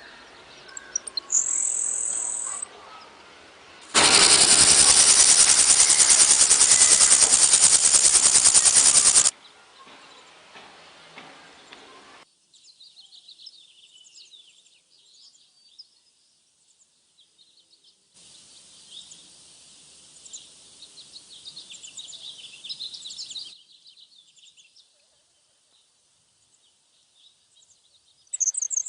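Grasshoppers stridulating, comb on the hind leg rubbed against the wing, in several separate recordings. A loud, fast rasping buzz lasts about five seconds, followed by faint high-pitched chirping, a pause, and a short loud high chirp at the end.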